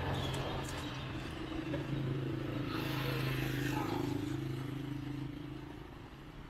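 Street traffic: a motor vehicle's engine running close by with a steady hum. There is a swell of passing-traffic noise about three seconds in, and the sound fades near the end.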